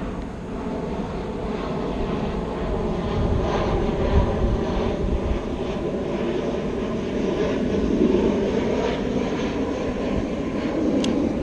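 A steady engine drone that holds its pitch, with low gusty rumble from wind on the microphone, strongest about three to five seconds in.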